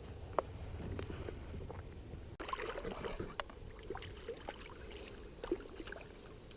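Wind buffeting the microphone and water lapping against a small fishing boat, with scattered small clicks and knocks.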